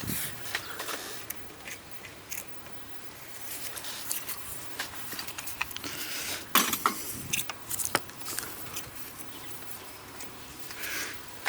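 Irregular small clicks, taps and scraping noises, with a louder cluster of sharp clicks about six and a half seconds in.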